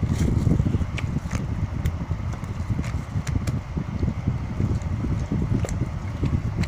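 Hands kneading sticky homemade slime: small sticky clicks and pops scattered throughout over a low, uneven rumble of handling noise.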